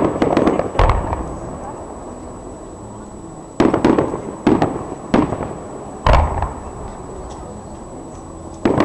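Aerial firework shells bursting with sharp bangs, each trailing off in a rolling echo: a cluster in the first second, then several about three and a half to six seconds in, and another near the end.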